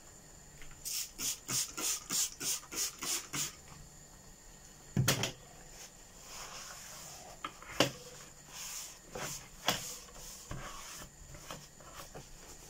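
A cloth scrubbing a wet bamboo chopping board in quick back-and-forth strokes, about three a second. A thump comes about five seconds in, then a sharp knock and more uneven wiping.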